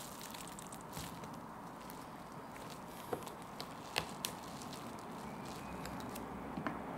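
Bamboo sushi mat being pressed and squeezed around a thin sushi roll: small clicks and creaks from the slats, the sharpest a little after three seconds in and around four seconds in, over a steady faint hiss.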